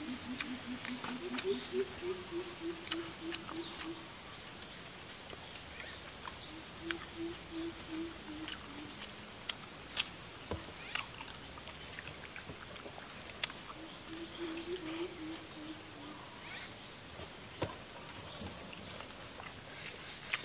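Hand-eating sounds: chewing and occasional sharp clicks of fingers and food on a metal tray. Under them runs a steady high insect drone, with several runs of quick, low repeated hooting notes from an animal and a few small bird chirps.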